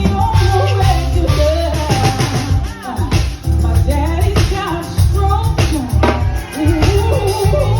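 Live R&B band playing: drum kit, bass and keyboards, with a woman singing a wavering melody over a strong bass line.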